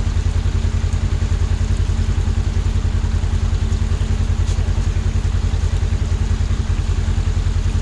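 Polaris RZR XP1000's twin-cylinder engine running steadily at low speed, with an even low pulse and no change in pitch.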